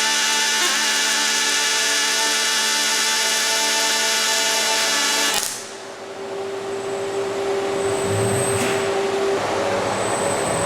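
Steady mechanical whine of running machinery, with many steady tones. About five seconds in it cuts off abruptly, and a noisier, steady machine hum with one held tone follows.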